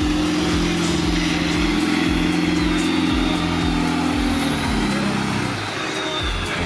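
Off-road 4x4's engine held at steady high revs, then the revs fall away about five seconds in.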